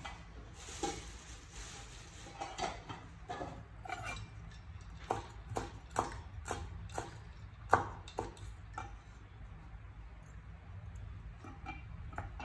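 Irregular light clinks and taps of utensils against a serving dish, the sharpest about three-quarters of the way through, over a low steady hum.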